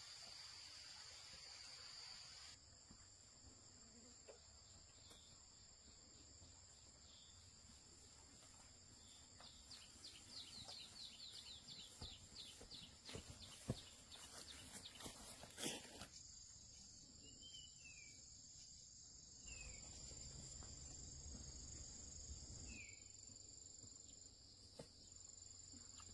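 Faint, steady high-pitched chirring of crickets and other insects, with a few short bird chirps in the second half and a couple of sharp clicks about halfway through.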